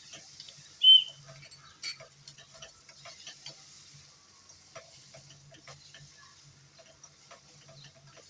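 Liver frying with onions and peppers in hot oil in a pan: a faint sizzle with scattered crackling pops. A short sharp high squeak about a second in, and a low hum that comes and goes.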